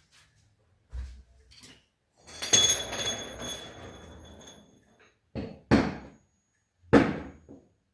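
A string of hard knocks and thuds, with one louder clang about two seconds in whose metallic ringing dies away over about two seconds.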